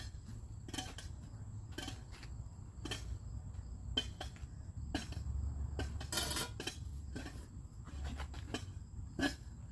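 Sharp clicks and short scrapes at irregular intervals, roughly one a second, with a longer rasping scrape about six seconds in, over a low steady rumble.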